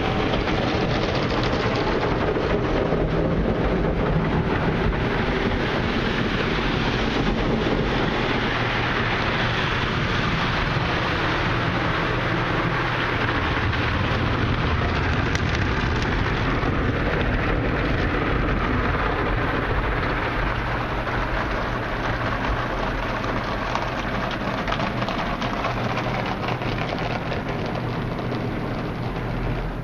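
Water spray and soft cloth brushes of a Ryko SoftGloss XS 2 automatic car wash beating against an SUV's windshield and body, heard from inside the cabin as a steady rain-like rush over a low hum.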